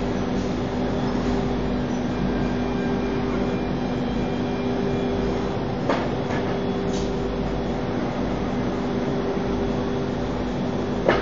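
ATC CNC router cutting a board, its spindle and dust extraction running with a steady hum. A brief sharp knock comes about six seconds in and another near the end.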